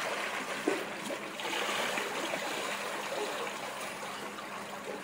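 Steady splashing of pool water churned up by a small child kicking and paddling in armbands.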